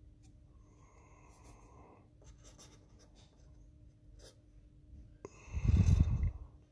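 Fingers and a fingernail rubbing and scraping on a small memory-module circuit board close to the microphone: faint scratching with a few small ticks, then a louder rustle of handling noise about five and a half seconds in.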